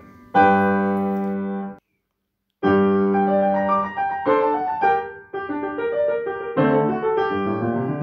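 Background piano music of slow held notes and chords, with a brief gap of silence about two seconds in.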